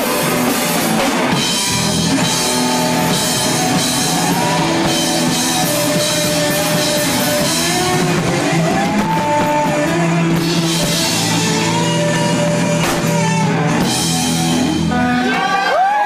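Live rock band playing an instrumental stretch: electric guitars, bass and drum kit over a steady beat. The lead guitar plays notes that bend up and hold.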